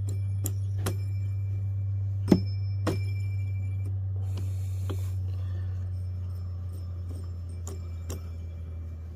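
Chainsaw clutch drum with a new drive sprocket spinning freely on the crankshaft: a steady low metallic hum with a faint high ring, slowly fading, with a few light metal ticks, the sharpest about two seconds in.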